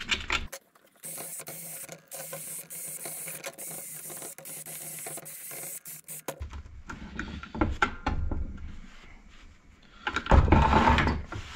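A steady hiss that lasts about six seconds and then stops suddenly, followed by scattered knocks and clanks from work on the gearbox, louder about ten seconds in.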